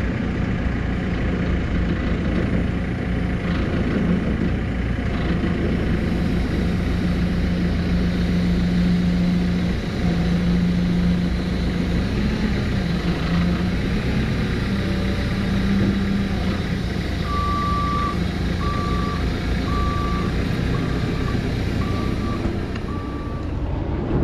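Diesel engine of a JCB telehandler running steadily, its pitch rising and falling a little as it works the load. Near the end its reversing alarm beeps six times, about one beep a second.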